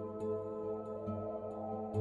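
Calm ambient background music: layered held tones over a low drone that swells in slow pulses.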